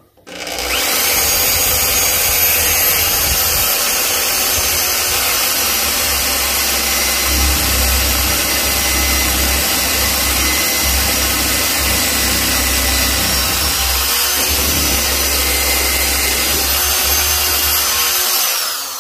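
Electric drill running steadily, boring screw holes through a deer's skull cap to fix the antlers to the form. The motor spins up about half a second in and winds down near the end.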